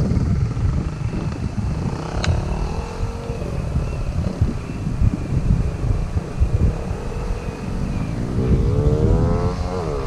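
Suzuki Raider 150 motorcycle engine on a freshly fitted Koso EVO 30mm carburettor, over a low rumble of wind on the microphone. Near the end the engine note climbs in pitch as it accelerates, then dips and climbs again. It runs cleanly with no backfire, a sign of a good carburettor tune.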